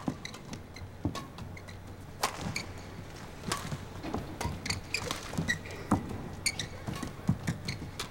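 Badminton rally in women's singles: sharp racket-on-shuttlecock hits about once a second, with short squeaks of court shoes on the floor between them.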